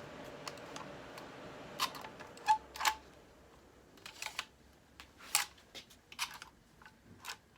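Onity keycard door lock being worked by hand: about a dozen sharp, irregular mechanical clicks and clacks from its handle, clutch and latch as the freshly repaired lock opens.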